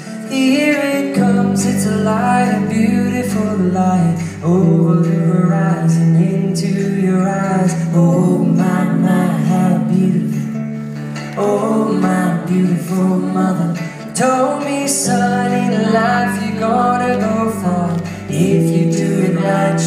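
Live acoustic band playing: strummed acoustic guitar and cello under sung vocals, heard from the audience in a theatre hall.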